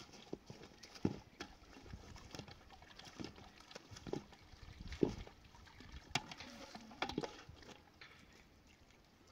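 A series of irregular knocks and thuds, about ten over seven seconds, spaced unevenly, the loudest about a second in and about five seconds in.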